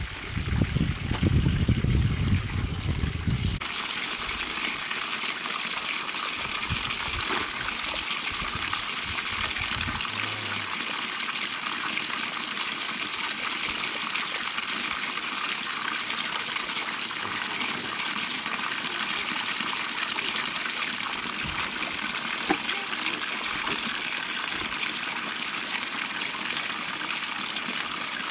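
Water gushing steadily from an outdoor tap into a plastic bucket and spilling over onto the concrete slab, with splashing as clothes are washed by hand in it. A low rumble sits under the water for the first three seconds or so.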